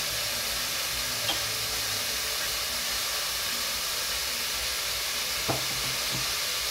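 Butter and olive oil sizzling steadily in a hot pan on the stove, with two light knocks, about a second in and again near the end.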